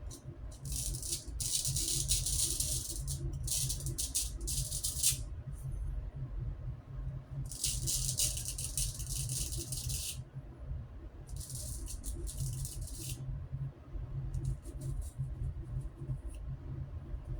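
Razor blade scraping through lathered stubble in a series of short, crackly strokes with pauses between them. The last few strokes are fainter.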